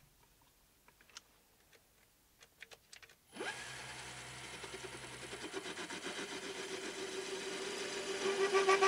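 A few light clicks, then a small metalworking lathe is switched on about a third of the way in: its motor and three-jaw chuck run up quickly with a rising whine and settle into a steady pitched hum with a faint high whine, growing louder toward the end.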